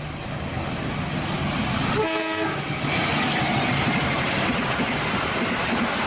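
KAI diesel locomotive hauling a passenger train past, its engine and wheel noise building slowly, with a brief horn blast about two seconds in.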